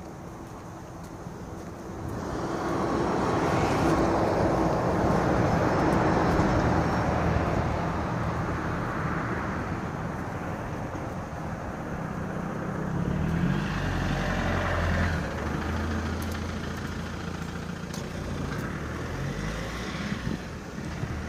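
Car driving on a road: a steady engine hum and tyre noise. The rushing noise swells a few seconds in, and the engine pitch rises about two-thirds of the way through.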